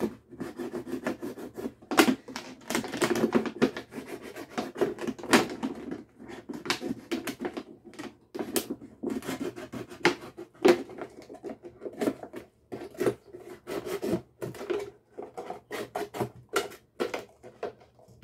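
A pocket knife sawing around a 2-liter plastic soda bottle to cut off its bottom. The thin plastic crackles and crinkles with many irregular sharp clicks as the bottle is turned and flexed.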